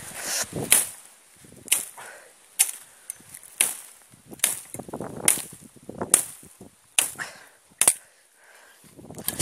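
A hand blade chopping through brush and thin stems in steady strokes, about nine in all, a little under one a second, each a sharp swish-and-crack with rustling of the cut growth between.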